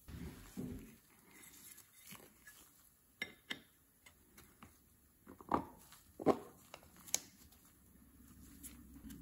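Gloved hands handling thin titanium plates and setting them into a white plastic tray: a brief rustle at the start, then a scattering of light clicks and taps, the sharpest two around the middle.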